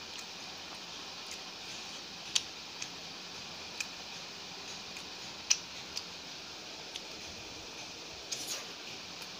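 Eating sounds from a person eating porota and chicken curry by hand: about eight short, sharp clicks and smacks at irregular intervals from fingers working the bread and from chewing, two of them louder, over a steady hiss.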